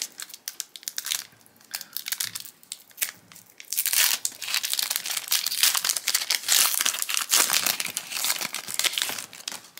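Foil trading-card booster pack being torn open and its wrapper crinkled: a few small crackles at first, then steady, dense crinkling from about four seconds in until near the end.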